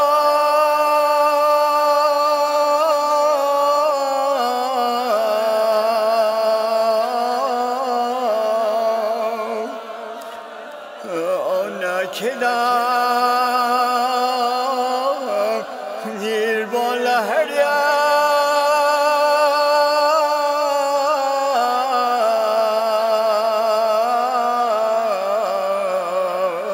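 A wordless chanted interlude in a marsiya recitation: slow, long-held notes with vibrato that step in pitch every few seconds, briefly dropping away about ten seconds in.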